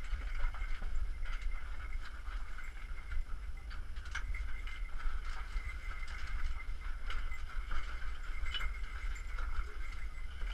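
Footsteps scuffing and clicking on a rocky trail, irregular and scattered, over a steady low rumble.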